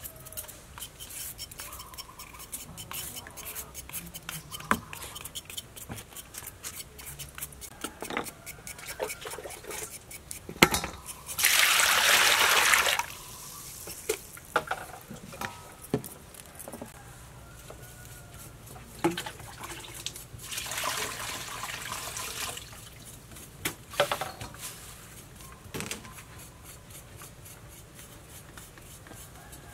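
A hand vegetable peeler scrapes a raw carrot in quick repeated strokes. Then water rushes and sloshes in a stainless steel bowl as the carrot is rinsed, in two spells about 11 and 20 seconds in, with a few knocks of things set down in between.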